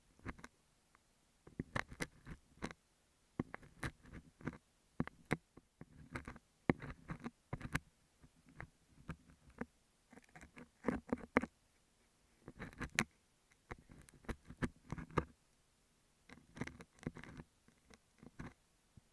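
A metal scaler picking and scraping a beeswax sheet held on an earphone microphone. It makes close, crackly scratches and clicks in short irregular bursts, with brief pauses between them.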